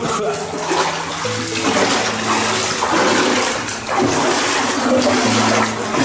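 Water rushing and splashing underfoot as people wade through an underground stream inside a concrete culvert.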